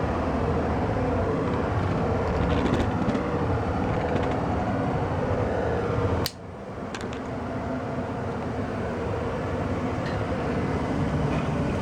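1994 Tempstar SP80 gas furnace running, a steady rushing rumble of burners and blower. About six seconds in a sharp click cuts the sound off, and it comes back quieter and builds up again.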